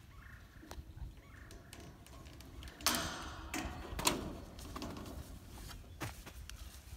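Scattered light knocks and clicks of PVC pipe being handled and pushed into its fittings, with two brief louder scrapes about three and four seconds in.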